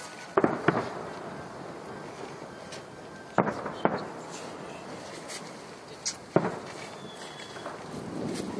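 Fireworks bursting: six sharp bangs falling in three close pairs, each bang trailing off in a short echo.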